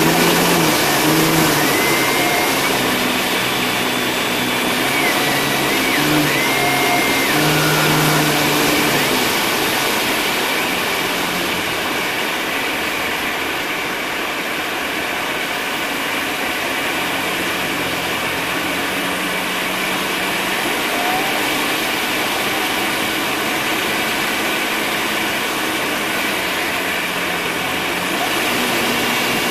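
Piper PA-25 Pawnee's piston engine and propeller running in flight, heard from inside the cockpit with airflow noise. The engine note shifts in a few small steps in the first several seconds, then holds steady.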